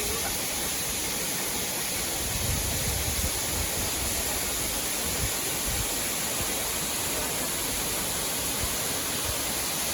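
Steady rush of water from Cikaso Waterfall, three falls of about seven metres each dropping into one pool.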